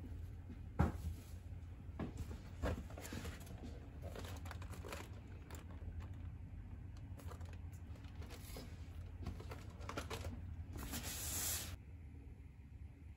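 Groceries being handled and unpacked: plastic bag and packaging rustling and crinkling, with a few knocks, the loudest about a second in. A louder stretch of crinkling near the end cuts off suddenly.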